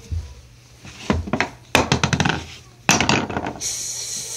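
Hard plastic toy dishes and pieces clattering and knocking against a plastic play kitchen, in a few quick clusters of clicks. A steady hiss starts near the end.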